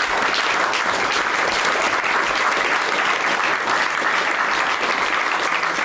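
Theatre audience applauding, a steady clapping from a small crowd as the actors take their bow.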